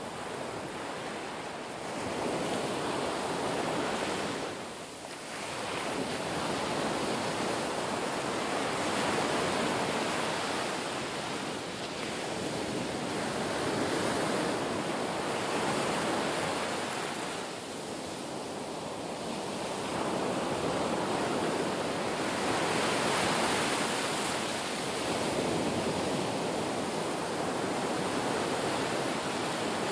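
Rushing water noise picked up by an underwater camera, a steady muffled wash that swells and eases every few seconds.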